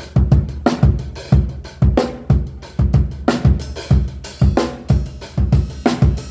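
Miked drum kit played in a steady groove: bass drum, snare, hi-hat and cymbals, about two strokes a second on the main beats, during a sound check.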